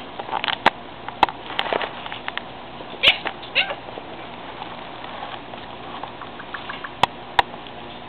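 Indian ringneck parakeet saying "You're so cute!" in a high, squeaky mimicked voice about three seconds in. Several sharp clicks come before and after it.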